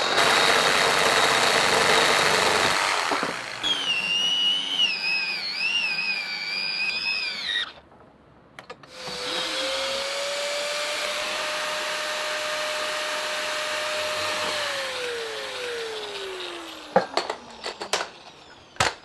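Makita reciprocating saw cutting through a steel central-heating pipe, with a wavering high squeal for a few seconds before it stops about eight seconds in. Then an electric handheld pipe-preparation machine runs at a steady pitch and winds down, falling in pitch, about fifteen seconds in, followed by a few sharp clicks near the end.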